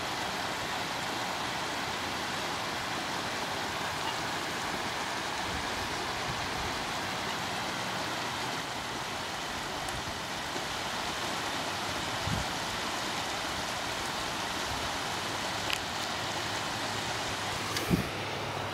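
Steady rushing of running water, an even hiss with no rhythm. Near the end there is a single sharp bump.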